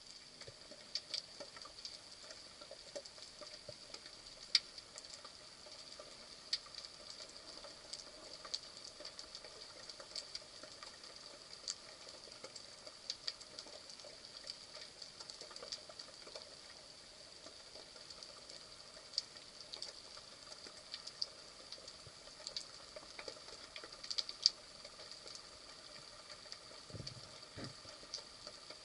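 Underwater ambience recorded by a camera in its housing: a faint steady hiss with scattered sharp clicks and crackles, and a couple of low thumps near the end.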